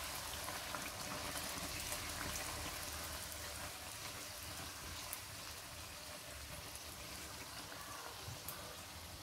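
Puri deep-frying in hot oil in a wok: a steady sizzle with scattered small crackles, slowly getting quieter.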